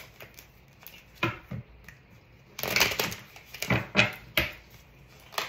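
A deck of tarot cards shuffled by hand, heard as several short rustling bursts of cards sliding against each other, with brief pauses between them.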